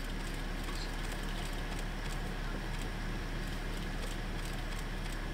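Steady low drone of a boat's engine running, with a constant hiss over it.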